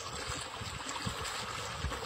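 Fast water rushing and splashing through a narrow channel, a steady wash with a few dull low thumps.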